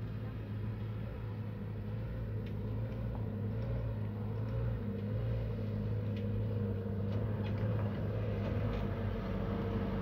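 Pickup truck engine idling with a steady low hum that grows slightly louder, with a few faint ticks over it.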